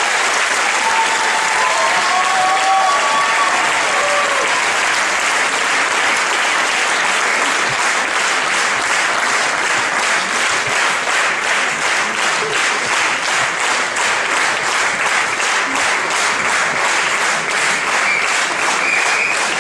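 Audience applauding steadily after the song ends, with a few whooping cheers in the first few seconds.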